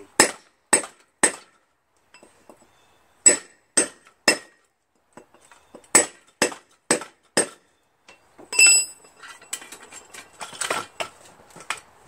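Small sledgehammer striking a cold chisel against a rusted wheel hub seized on a lawn tractor transaxle axle. The sharp metal-on-metal strikes come in three runs of three or four, about two a second. Later comes a single ringing metal clank, followed by scraping and rattling.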